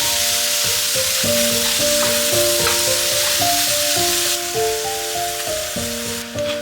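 Food sizzling as it fries in a hot pan, a steady hiss that eases off about four seconds in, under background music.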